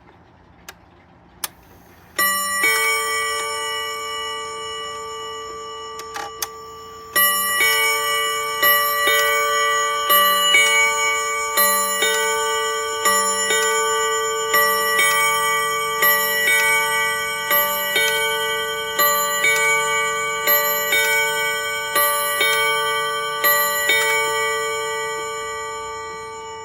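Quartz mantel clock's battery-driven hammers striking physical chime rods: one strike about two seconds in, then from about seven seconds a sequence of strikes at different pitches, playing a chime tune. The rods ring on and fade slowly, and the chime is loud.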